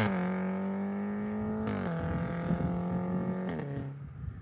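Mercedes-Benz C300's turbocharged four-cylinder engine through an Armytrix aftermarket exhaust, driving away and fading. Its note steps down in pitch three times, each step marked by a short crack, as it shifts up.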